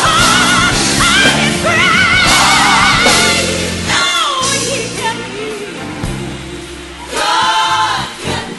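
Gospel music: a lead singer sings long, wavering notes with heavy vibrato over a band and choir. The singing is loudest in the first three seconds, then falls back, and another strong held note comes about seven seconds in.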